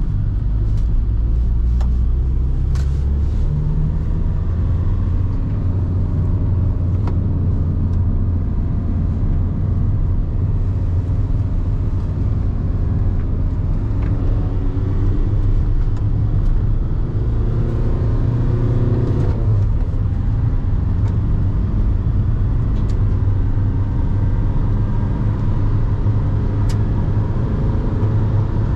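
Volkswagen T5 Transporter's 84 hp 1.9 TDI four-cylinder turbodiesel pulling hard under acceleration, heard from inside the cab over steady road drone. Its pitch climbs through a gear and drops at an upshift about two-thirds of the way in.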